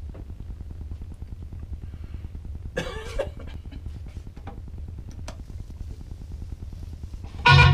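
Low steady hum with faint clicks as DJ decks and a mixer are handled, and a brief vocal sound about three seconds in. Music starts loudly from the decks near the end.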